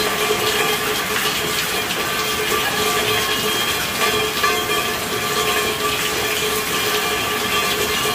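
Steady rainfall, many close drops pattering in a continuous hiss, with a few faint steady tones running through it.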